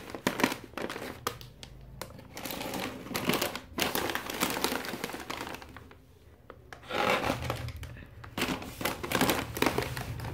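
Plastic snack bags crinkling as they are handled and laid down in a row, in irregular bursts with a short lull about six seconds in.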